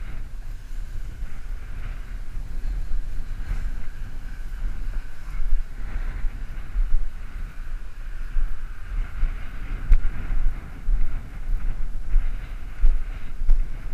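Wind rumbling on an action camera's microphone while the wearer walks through tall grass, with grass rustling and uneven thumps of footsteps from about the middle on.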